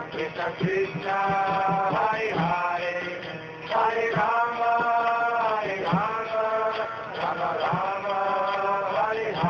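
A male voice singing a devotional chant in long held notes that slide between pitches, with soft percussion strokes beneath.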